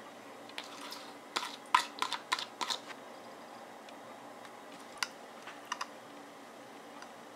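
Light kitchenware clicks and taps: a quick run of sharp clicks about a second and a half in, as a ceramic bowl knocks against a glass dish while sliced green onions are tipped in, then a few single clicks later from handling a plastic jar of chili oil and a metal spoon.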